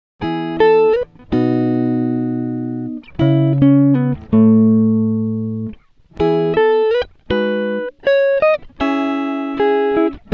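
Background music: a melody of single notes, each starting sharply and fading out, a few of them sliding up in pitch.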